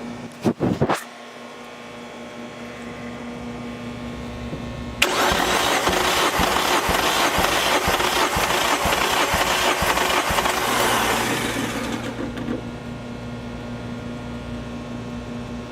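Starter motor cranking a Mazda Miata BP 1.8 L four-cylinder engine for about seven seconds during a compression test. It starts about five seconds in and stops about twelve seconds in. A couple of sharp clicks come near the start, and a steady hum runs underneath.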